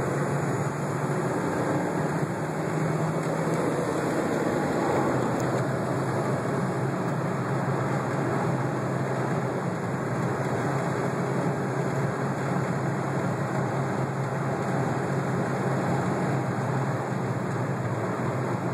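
Car on the move: steady engine and road noise with a low hum.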